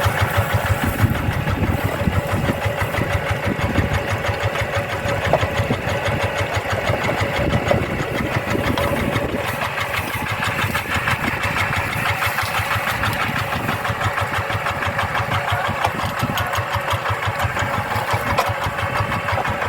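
Two-wheel rice-field tractor's single-cylinder diesel engine running steadily with an even, rapid chugging.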